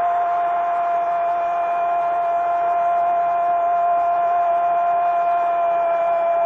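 Brazilian football commentator's long held goal cry, "gooool", one shouted note kept at a steady pitch for the whole stretch.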